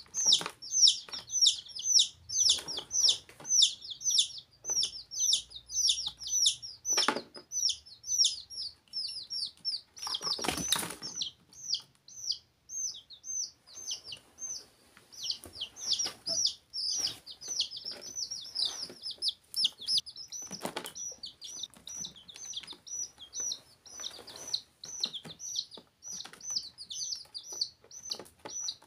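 Young chicks peeping continuously: short, high chirps, several a second, each falling in pitch. Scattered knocks and scuffles go with them, the loudest about ten seconds in, after which the peeping thins for a few seconds before picking up again.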